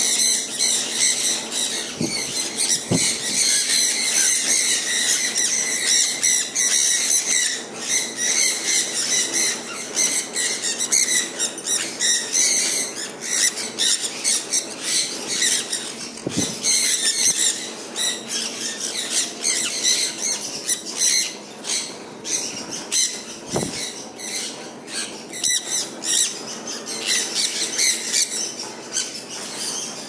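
A flock of sun conures keeps up continuous shrill screeching and chattering, many calls overlapping, with a few brief knocks.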